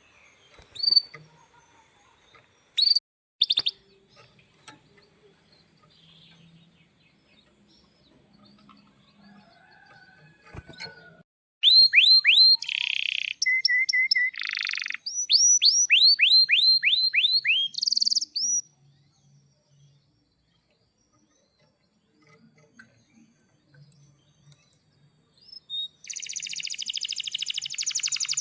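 Male domestic canary singing: a few short chirps, then a burst of song made of rapid repeated down-slurred notes and buzzy phrases, and near the end a fast, even rolling trill begins.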